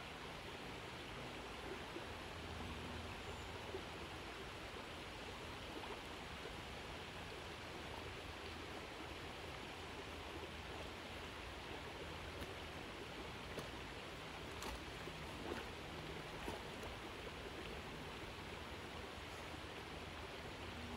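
Creek water running steadily around a dog swimming, with a few small sharp splashes from its paddling and head-dipping about two-thirds of the way in.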